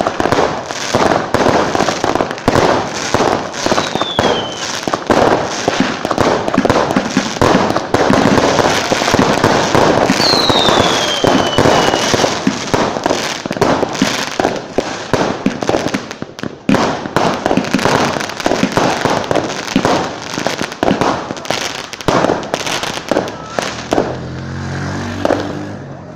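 Many fireworks and firecrackers going off at once in a dense, continuous barrage of bangs and crackling, with a falling whistle twice, about four seconds and ten seconds in. The barrage thins out near the end.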